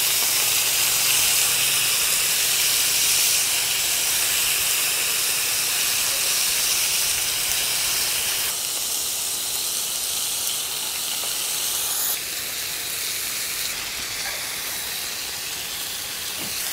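Smoked bacon strips and beef burger patties sizzling in hot oil in a frying pan over high heat: a steady hiss that eases a little in the second half.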